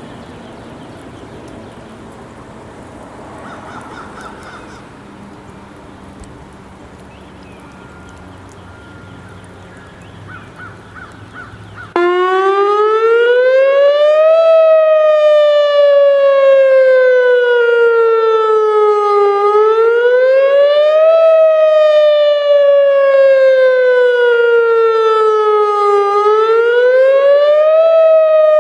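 Whelen WPS 2902 electronic outdoor warning siren switching on abruptly at full volume about twelve seconds in and sounding its wail for a weekly test. The pitch rises over about two seconds and then falls more slowly, repeating about every seven seconds. Before it starts there is only faint outdoor background.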